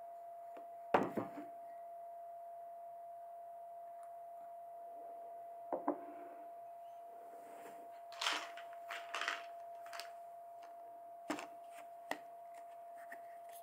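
Objects being handled and set down on a desk over a faint steady hum. A heavy knock comes about a second in, a small ceramic cup is set down around six seconds, and then a run of clatters and knocks follows as a plastic jar of nuts is picked up and handled.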